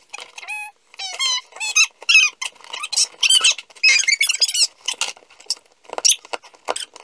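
Repeated sharp, high squeaks as the packing tape on a sealed cardboard box is cut and pulled open with a small knife.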